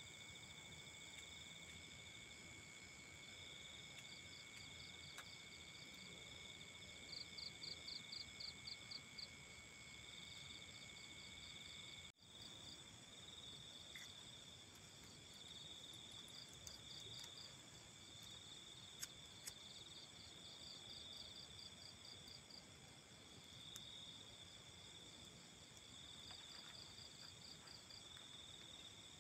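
Faint chorus of night insects such as crickets, several steady high trills at different pitches, with bursts of a faster pulsing chirp. About twelve seconds in the sound briefly drops out and one of the trills stops.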